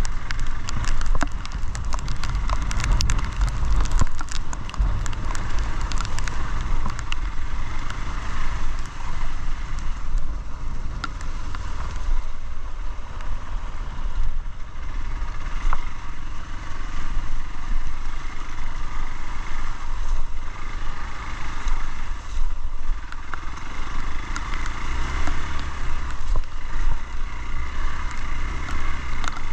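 A motorcycle being ridden on a dirt trail: the engine runs under steady wind noise on the microphone. Scattered sharp clicks and knocks come in the first few seconds.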